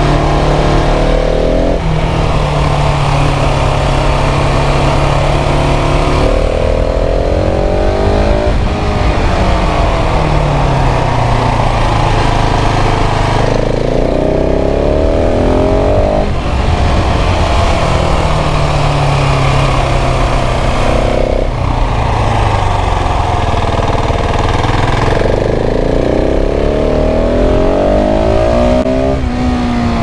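KTM 690 SMC R's LC4 single-cylinder engine, heard onboard. It revs up and drops back again and again, with sudden pitch jumps at gear changes every few seconds as the bike accelerates and slows.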